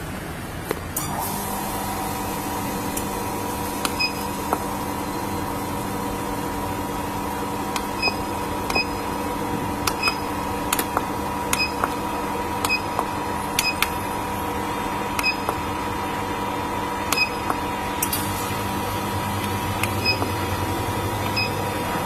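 Mobile laser welding machine humming steadily after power-on, with a hum of several steady tones coming up about a second in. Irregular short clicks with brief high beeps sound over it throughout.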